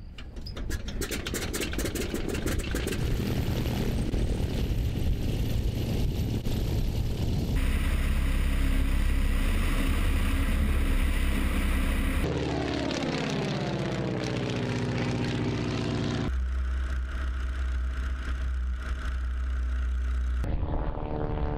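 Boeing Stearman PT-17 biplane's seven-cylinder radial engine being hand-propped and catching with a clatter, then running steadily and at power, with the sound jumping between shots. Partway through and again near the end the plane passes by, its engine pitch falling as it goes past.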